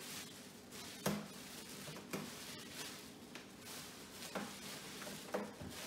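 Plastic wrapping crinkling as it is pulled off an air purifier's power cord, with four sharp knocks, the loudest about a second in.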